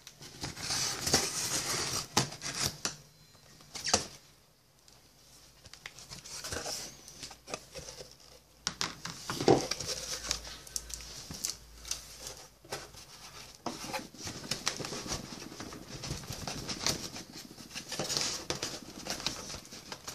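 Knife slitting the packing tape on a cardboard shipping box, then the box being handled and its flaps pulled open: an uneven run of scrapes, rips and taps.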